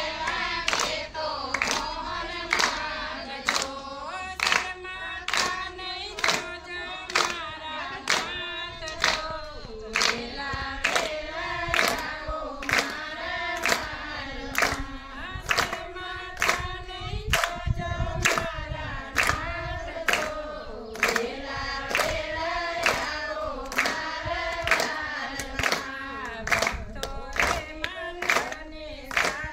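A group of voices singing a Gujarati Gor Maa devotional song, with steady hand claps keeping the beat, a little under one and a half claps a second.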